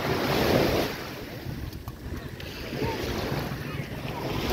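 Waves washing onto a beach in swells, the loudest about half a second in and another building near the end, with wind buffeting the microphone.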